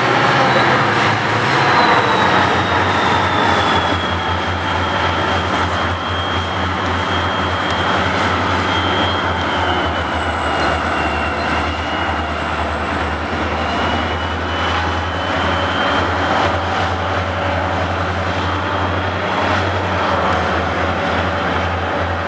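Two EMD SD40-2 diesel-electric switch locomotives working under throttle, their turbocharged diesel engines running with a steady low drone and a high whine that slowly drops in pitch and then holds.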